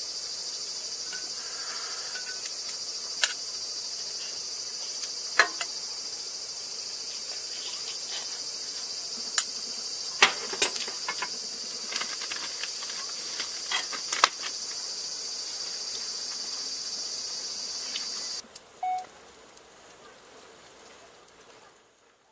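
Steady, high-pitched shrilling of a summer insect chorus, with a few sharp clicks and knocks over it; the chorus cuts off suddenly about eighteen seconds in, leaving a much quieter background.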